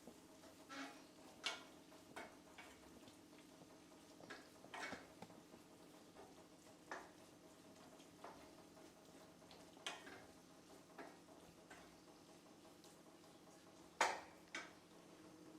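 A spoon knocking and clinking against a cooking pot now and then while stirring, about ten scattered knocks with a louder one near the end, over a faint steady hum.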